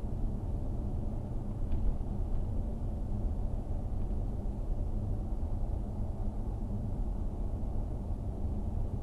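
A car driving along a motorway, heard from inside the cabin: a steady low rumble of road and engine noise with a faint steady hum.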